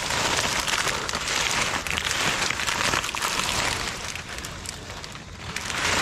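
Coconut palm fronds rustling and scraping, a dense crackling hiss that eases off past the middle and swells again briefly near the end.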